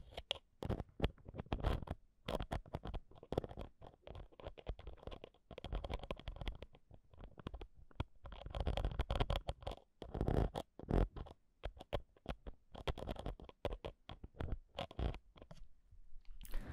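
A metal ear pick scraping and tapping on the X/Y microphone capsules of a Zoom H1 handheld recorder. It comes through very close up as irregular scratches and clicks over a low rumble of handling noise.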